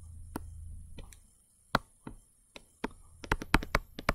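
Stylus tapping and clicking on a tablet screen during handwriting: scattered sharp taps that come quicker near the end, over a faint low hum that stops about a second in.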